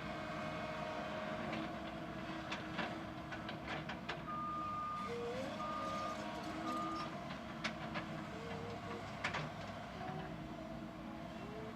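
Komatsu PC220 hydraulic excavator's diesel engine running steadily while it moves debris, with scattered sharp clanks and knocks. A reversing alarm beeps three times about four to seven seconds in.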